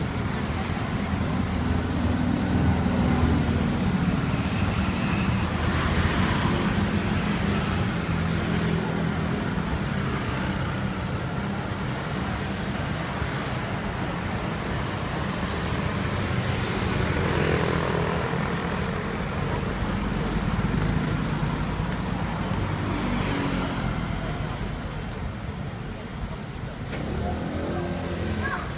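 Busy city street traffic: vehicle engines running steadily at an intersection, with cars and motor scooters passing. Near the end an engine rises in pitch as a vehicle pulls away.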